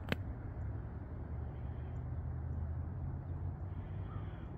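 Steady low outdoor rumble over open lake ice, with a sharp click just after the start and faint crow caws near the end.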